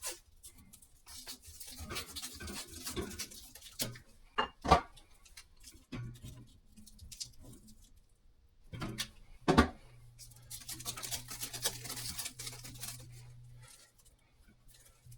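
Handling noise from working on a shower head and its fittings: scattered clicks and rustling, with two sharp knocks about four and a half and nine and a half seconds in.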